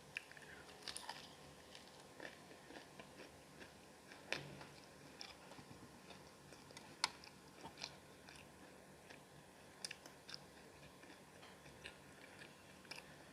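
Faint chewing and biting on a chicken leg piece: wet mouth sounds with scattered small crunchy clicks. The sharpest clicks come about four and seven seconds in.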